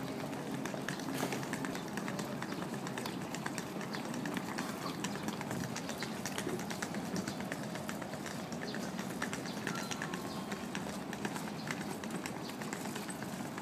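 Footsteps of someone walking on brick paving, a quick run of short irregular taps over a steady outdoor background hiss.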